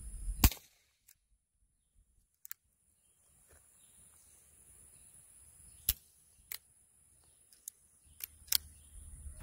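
Suppressed Nagant M1895 revolver (7.62×38mmR) firing through a Dead Air Wolf 9SD suppressor: one sharp shot about half a second in, then several shorter, sharp cracks and clicks spread between about six and nine seconds in.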